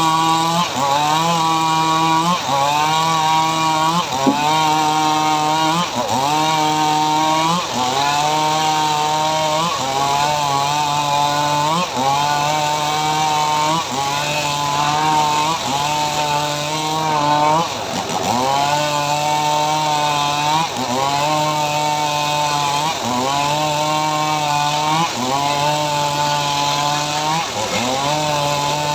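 Engine-driven homemade saw cutting mahogany: the engine runs continuously, its pitch sagging under load and picking up again in a regular cycle about every second and a half as the blade works through the wood.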